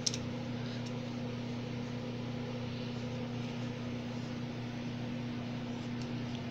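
Electric desk fan running with a steady low hum. A sharp click right at the start and a few faint ticks come from the plastic frame of a mobile phone being handled during disassembly.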